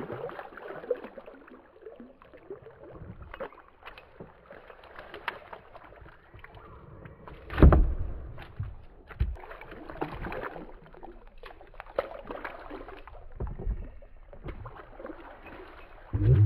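Water splashing and lapping around a plastic kayak as it moves along the river, with scattered small knocks and one louder thump about halfway through.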